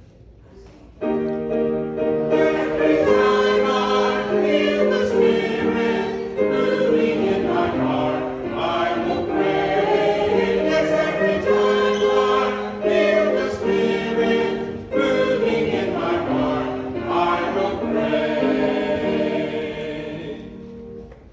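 Church music with sustained chords and held notes, sounding like a choir; it starts about a second in and fades near the end.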